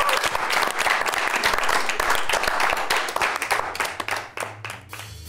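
Studio audience applauding: dense clapping that thins out to a few scattered claps near the end.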